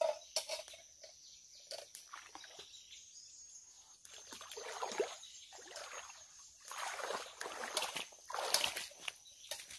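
Bare feet wading through a shallow stream, with several splashing steps in the second half, the loudest near the end.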